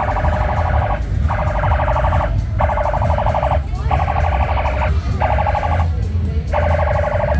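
Electronic alarm sounding in repeated blasts about a second long with short gaps: a buzzing, warbling tone held at one pitch, about six times. Under it runs a steady low bass hum.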